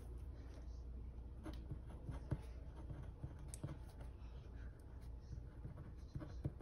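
Pen writing on paper: faint scratching strokes with a few small ticks as the pen tip meets the page.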